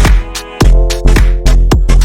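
Background music with a heavy bass line and a steady beat, in an electronic dance style.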